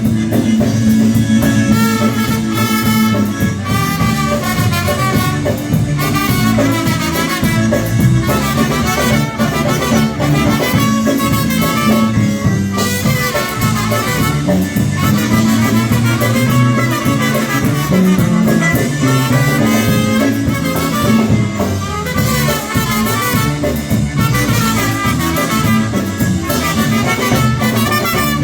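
Polka band playing an instrumental break in a song, with a lead melody over a steady, pulsing bass.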